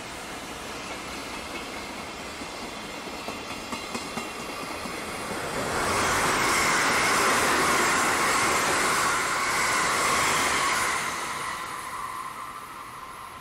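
Trains passing at a rail yard: a freight train rolls by with a few wheel clicks over rail joints, then an electric commuter train passes close and is much louder for about five seconds before fading away.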